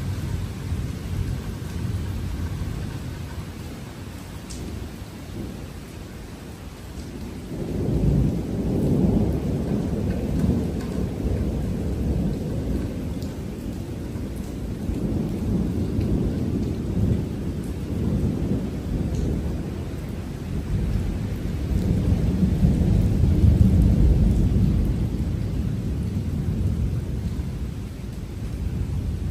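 Thunder rolling in a long, deep rumble that surges sharply about seven seconds in, then rumbles on and builds again about two-thirds of the way through.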